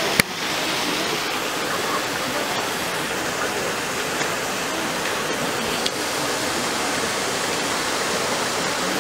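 Steady rush of running water, with one sharp click right at the start.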